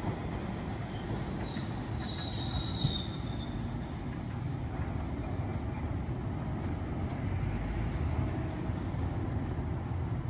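A Nagasaki Electric Tramway streetcar approaching on street track: a steady low rumble, with thin high squeals from its steel wheels on the rails about two seconds in and again briefly around five seconds.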